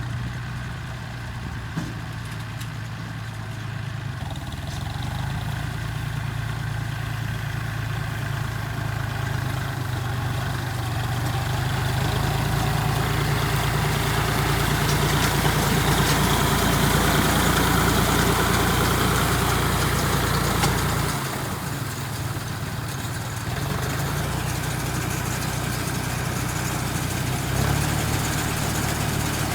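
An engine running steadily with a low hum. It grows louder through the middle, drops back suddenly about two-thirds of the way through, then picks up slightly near the end.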